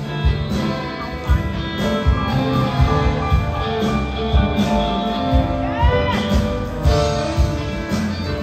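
Live rock band with symphony orchestra playing an instrumental passage: electric guitar over sustained chords and a steady drum beat, with a note bending up and back about six seconds in.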